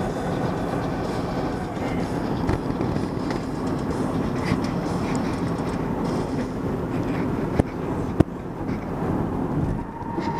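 Road noise inside a moving car: a steady rumble, with two sharp clicks about eight seconds in.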